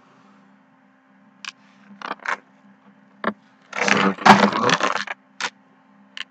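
Handling noise: about half a dozen sharp clicks and taps spread out, with a louder clattering, rattling scrape lasting over a second, about four seconds in.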